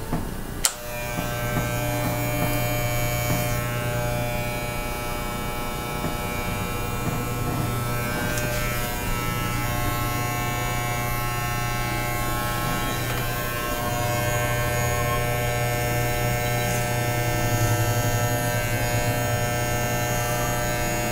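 Corded electric hair clippers running with a steady buzz as they cut a man's hair around his ears. The buzz starts after a click just under a second in.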